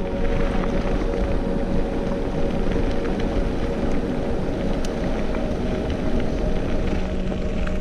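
Mountain bike tyres rolling fast over a gravel forest road, with wind noise on the microphone and small clicks and rattles from stones and the bike.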